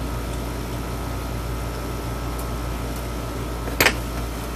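Steady background hum with a faint fixed tone, and one short sharp click near the end as an eight-pin surface-mount chip is set down onto its pads on the circuit board.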